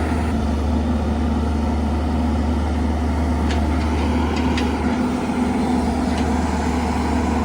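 Heavy diesel engine of earthmoving machinery running steadily, a constant low drone, with a few faint light clicks or knocks about halfway through.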